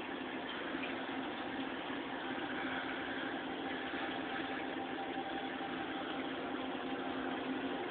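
Reef aquarium's pumps and equipment running: a steady hum with a constant hiss behind it.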